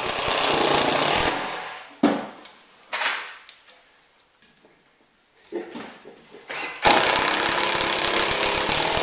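Cordless drill/driver driving screws up into a pine board ceiling, running in bursts: a run at the start, a short one about two seconds in, and a longer steady run from about seven seconds on, with a few clicks in between.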